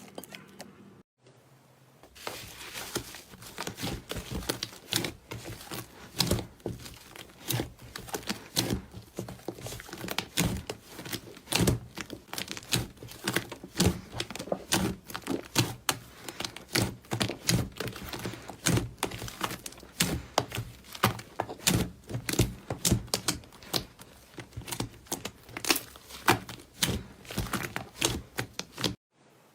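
Slime being squeezed and poked by hand, giving a dense, irregular run of small crackling clicks and pops. The sound breaks off briefly about a second in.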